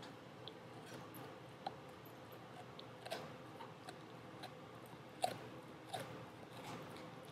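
Dog chewing a rawhide strip: irregular soft crunches and clicks of teeth on the hide, the loudest a little over five seconds in.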